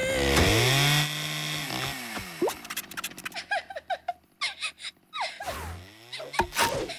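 Cartoon sound effects: a swooping pitched sound that dips and rises in the first two seconds, then a run of short chirpy notes, then another swoop near the end.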